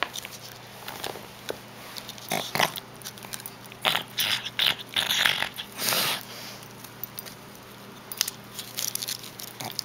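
Pug snoring and snorting through its short snout, in a run of short noisy breaths through the middle with a few fainter ones near the end.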